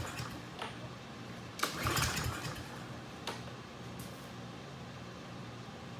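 A pull on the recoil starter cord cranks a Briggs & Stratton lawn mower engine about two seconds in, followed by a few light clicks. The engine does not catch and run, because it is starved of fuel with the carburetor bowl not yet filled.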